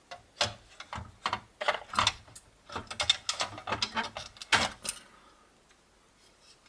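Plastic housing parts of an HP Photosmart C3180 printer clicking and snapping as the upper part of the case is pried off its clips, a run of irregular clicks that stops about five seconds in.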